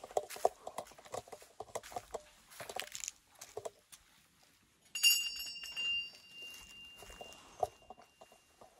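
A temple bell struck once about five seconds in, ringing with a clear high tone that dies away over about four seconds. Before it, light shuffling and small knocks.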